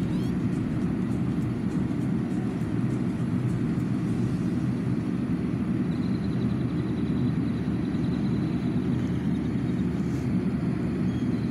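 Steady low rumble of a running car heard from inside the cabin. A faint thin high tone comes in about six seconds in and fades out a few seconds later.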